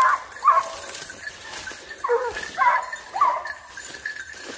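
Boar-hunting hounds baying in short calls, about five barks, while on the chase after wild boar that have just broken cover.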